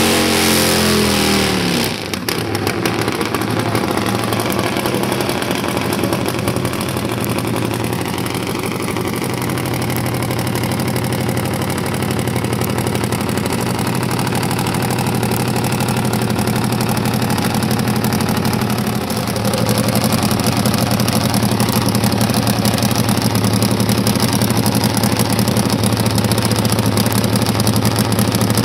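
Top Fuel nitro-burning Harley-Davidson V-twin drag bike engine: its burnout revs die away about two seconds in, then it idles steadily with a rapid, rough beat. The idle gets a little louder about two-thirds of the way through.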